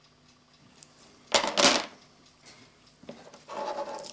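Handling noise from a steel clock mainspring and pen being moved about and set down: two sharp clicks close together about a second and a half in, then a softer metallic scraping rustle near the end.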